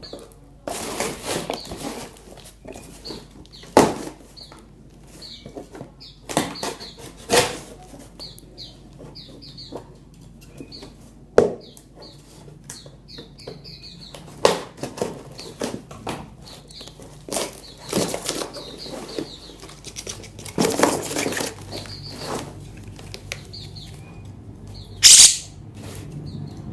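Wild-caught cucak jenggot (grey-cheeked bulbuls) flapping their wings in irregular bursts and rustling as they are handled out of a shipping box, with faint short chirps between the bursts.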